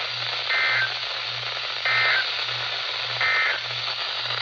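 Emergency Alert System digital end-of-message tones: three short two-tone data bursts about a second apart, over steady radio static. They mark the end of the tornado warning broadcast.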